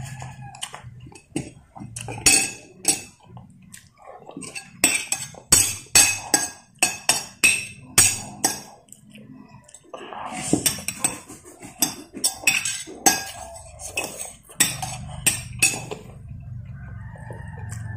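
Metal spoon clinking and scraping against a porcelain plate as rice is scooped up: a long run of quick, sharp clinks that stops a couple of seconds before the end.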